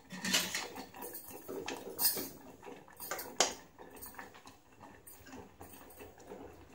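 Kitchen utensils clinking and knocking: a handful of scattered sharp clinks, the loudest about two seconds and three and a half seconds in.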